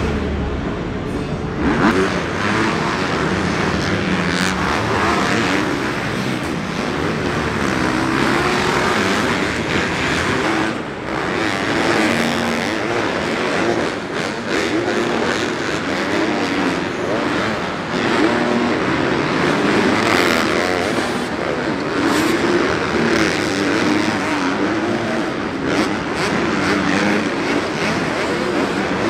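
Supercross dirt bike engines racing around the track, rising and falling in pitch again and again as the riders open and close the throttle over the jumps.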